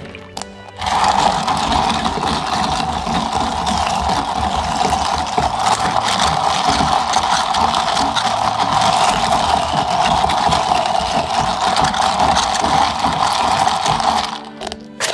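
Ice rattling against a plastic cup as an iced drink is stirred briskly with a straw through a dome lid: a fast, dense clatter that starts about a second in and stops shortly before the end.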